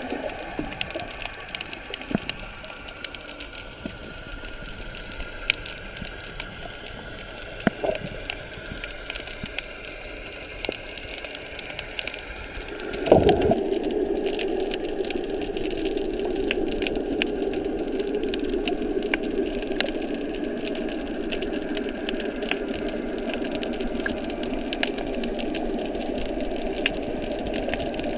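Underwater sound picked up by a GoPro HERO3+ in its waterproof housing: a muffled water hush with many scattered sharp clicks. About halfway through, a loud thump, after which a steady mechanical drone sets in.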